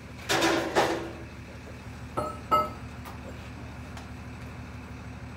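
Hammer strikes on a steel pump fluid end: two heavy blows in the first second, then two sharper strikes about a third of a second apart, each leaving a short metallic ring. They are test taps, the sound showing whether the cap is really tight.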